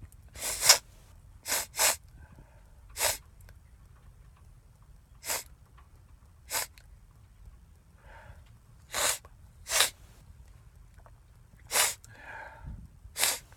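A man sniffing hard through his nose, about ten short sharp sniffs, some in quick pairs, the first about half a second in the loudest. He is snorting cayenne pepper to bring on a sneeze.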